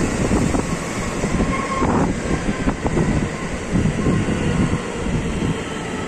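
A JR West electric rapid train running past on the adjacent track, its wheels clattering over the rails, with a brief high squeal about one and a half seconds in.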